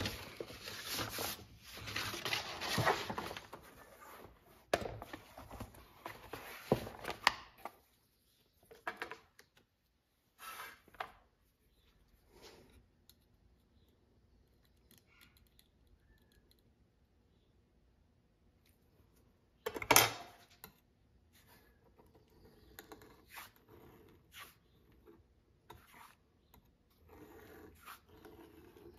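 Stiff latigo leather pieces rustling and sliding as they are handled on a workbench for the first seven seconds or so, then scattered light clicks and faint scratching from a small hand tool working on a flat piece of leather, with one sharp knock about twenty seconds in.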